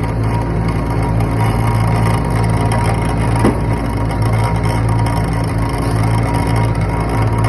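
Concrete pump truck's diesel engine running steadily under load, with one short knock about halfway through.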